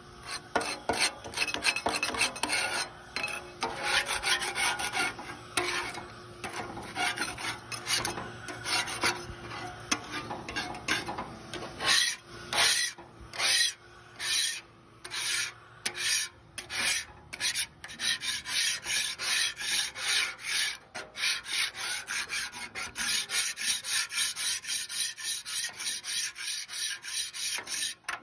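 A hand scraper scraping loose rust off the rusted steel cooking top of a 36-inch Blackstone griddle in repeated strokes. The strokes are uneven at first, then settle into a steady rhythm of about two or three a second in the second half.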